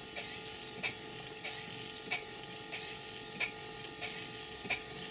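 Stuart Models Major model beam engine running, a light click with a short hiss about three times every two seconds, over a faint steady hum. The engine is newly built and not yet run in, so it is still running quite fast.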